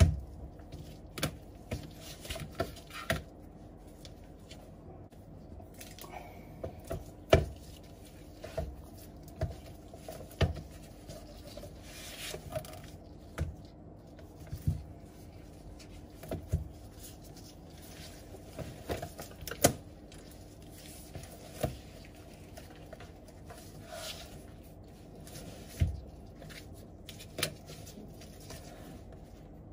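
Irregular taps, clicks and light knocks of gloved hands handling an iPad Pro 12.9 and its fabric Smart Keyboard Folio on a tabletop, as the tablet is lifted from the folio and set down, over a faint steady hum.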